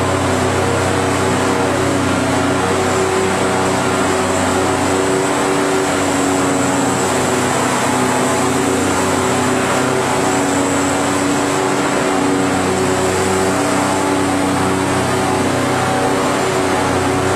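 Corrugated cardboard production line machinery running: a steady machine hum with several held tones and a faint high whine.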